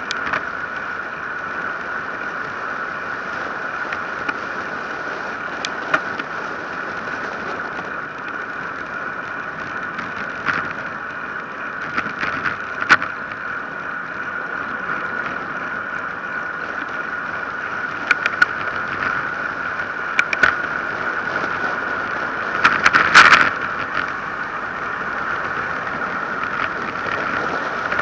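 Road bicycle coasting fast downhill on asphalt: a steady rush of wind and tyre noise with a high, steady hum, broken by sharp knocks as the bike hits bumps in the road. The loudest run of knocks comes a little past three-quarters of the way through.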